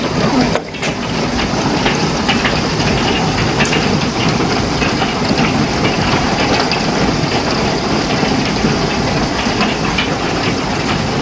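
Large hail, marble- to golf-ball-sized, pounding down with heavy rain in a thunderstorm: a loud, dense hiss thick with sharp clattering impacts.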